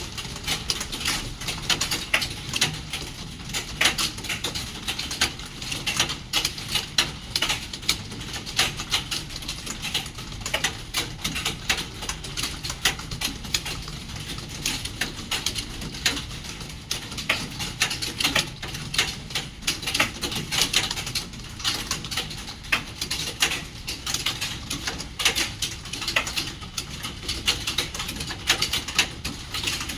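Several computer keyboards being typed on rapidly at once, a dense, uneven clatter of key clicks during a timed typing test.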